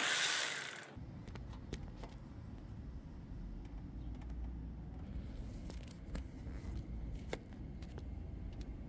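Socket wrench working on the thermostat housing nuts: scattered metallic clicks and scrapes of the socket and ratchet on the nut, over a low rumbling handling noise. A loud burst of hiss fills the first second.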